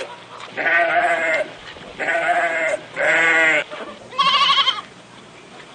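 Recorded sheep bleating: four separate quavering bleats in quick succession, the last one higher-pitched.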